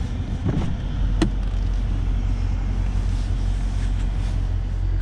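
Mercedes-AMG GT 63 S 4-door's 4.0-litre twin-turbo V8 idling as a steady low drone, heard from the driver's seat. Two short clicks in the first second or so as the driver's door is unlatched and opened.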